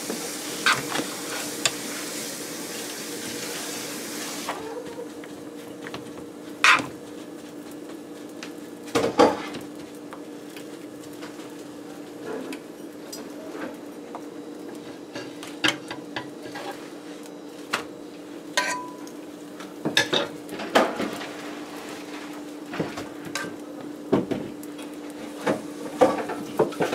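Metal serving spoon scraping and clicking against a frying pan as chow mein noodles are scooped out, in scattered knocks over a steady low hum. A hiss in the first few seconds cuts off about four and a half seconds in.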